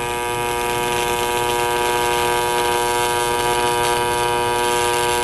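AC TIG welding arc on aluminium from a Miller Dynasty 350 inverter set to 120 Hz and 75% electrode-negative balance, giving a steady, even buzz pitched by the 120 Hz current.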